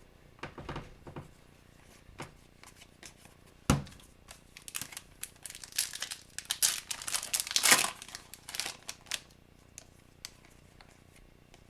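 Crinkling and tearing of a hockey card pack's foil wrapper, with a sharp knock about three and a half seconds in. Scattered clicks follow as the cards are handled.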